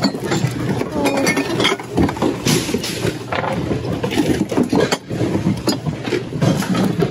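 Ceramic dishes and figurines clinking and knocking against each other in a plastic tote as hands rummage through them, in a run of irregular sharp clinks.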